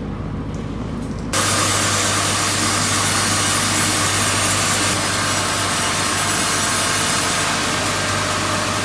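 Bandsaw sawmill running, then from about a second and a half in, its blade cutting steadily through a very wide oak log with a loud, even sawing noise under a steady engine hum.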